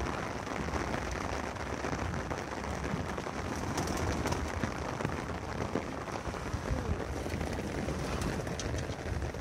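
Steady rain falling, an even hiss of drops on hard surfaces.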